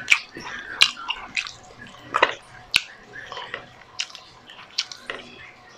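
Close-miked wet eating sounds of a person chewing grilled milkfish: a run of sharp lip smacks and mouth clicks, several a second.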